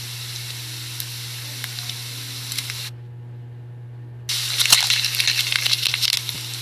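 Food sizzling in a hot pan: an even hissing sizzle for about three seconds, a short gap, then a louder, crackling sizzle from about four seconds in, over a steady low hum.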